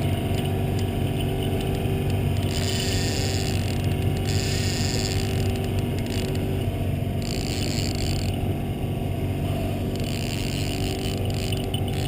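Boat motor running steadily at low trolling speed, a constant low hum. About four brief higher whirring stretches of roughly a second each come and go over it.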